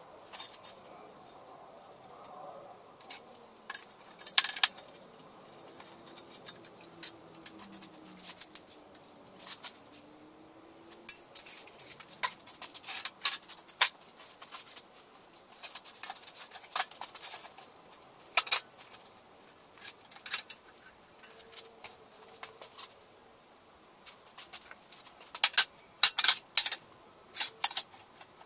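Steel tube frames and clamps knocking and clinking against a perforated steel welding table as they are set in place. The sharp metallic clanks and clicks come irregularly, in several flurries.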